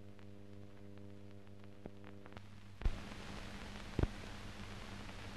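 Blank soundtrack of an old film: a steady low hum with faint crackles. About three seconds in, a loud pop comes and a hiss rises, with another pop a second later.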